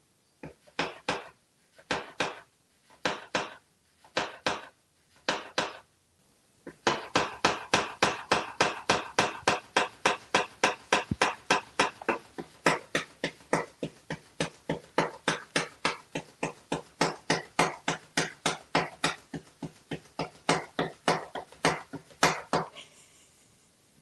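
Motorized flopping-fish toy slapping its tail against a stone countertop: a few short pairs of slaps in the first six seconds, then a steady run of about four slaps a second that stops suddenly near the end.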